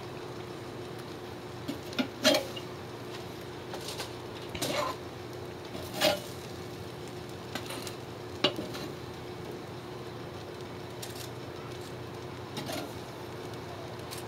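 Metal tongs clinking against a cast-iron grill grate as toasted rolls are lifted off, a handful of sharp separate clinks a second or more apart, over a faint steady hum.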